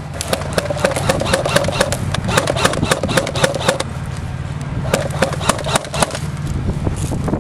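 Airsoft electric gun (P90-style AEG) firing on full auto: rapid clicking of the gearbox cycling with a motor whine, in two long bursts with a break of about a second near the middle, over a steady low hum.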